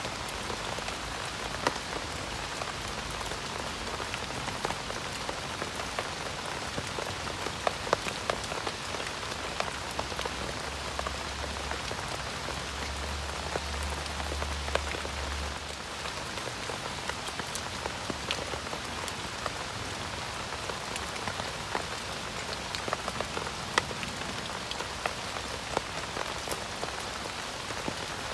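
Steady rain falling on a camp shelter, a continuous hiss broken by many separate sharp drop hits.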